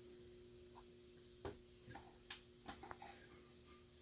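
Faint, scattered clicks of an Allen wrench on the screws of a miter saw's zero clearance table insert as they are tightened down, over a low steady hum.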